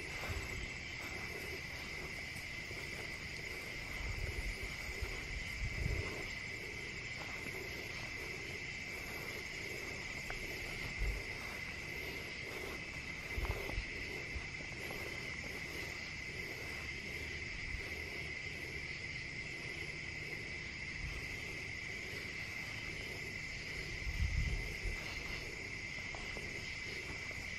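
Steady chorus of night insects trilling without a break, with a few soft low thumps scattered through it.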